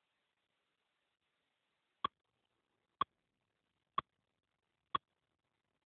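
Four short, sharp clicks at an even pace of about one a second, starting about two seconds in, like a metronome count-in, over faint hiss.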